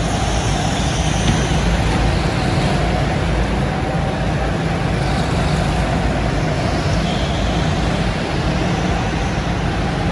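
Steady, loud mechanical rumble and hiss of an indoor go-kart track, unbroken throughout.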